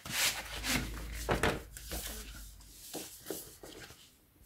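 A large paperback book being handled and its paper pages turned: a series of short, irregular rustles and rubs.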